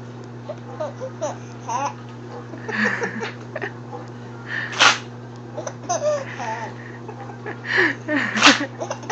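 A baby's short laughing and babbling sounds, broken by sharp hiccups: two loud hics, one about five seconds in and one near the end. The hiccups keep cutting his laughter short.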